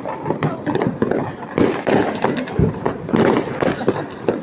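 Firecrackers and fireworks going off all around in a dense, irregular run of bangs and crackles, with a heavier bang about two and a half seconds in.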